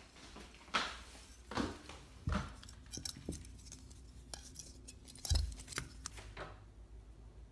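A plastic spool of clear fishing line being handled and unwound at close range: irregular small clicks and knocks, about nine in all, the loudest a dull thump about five seconds in.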